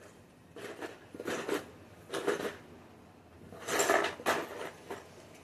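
Small plastic fidget-toy pieces clattering and rattling as they are handled and moved about, in four or five short bursts, the loudest about four seconds in.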